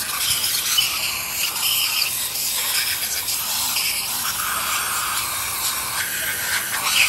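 Suction-cup compressed-air spray gun hissing as it blasts a mist of liquid over a bare aluminium engine block, the hiss shifting in tone as the jet moves across the metal.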